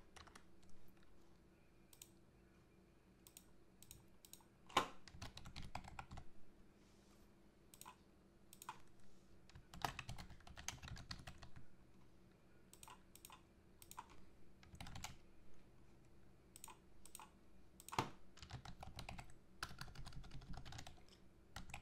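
Computer keyboard typing, quiet, in several short runs of key clicks with brief pauses between them, as words are typed into form fields.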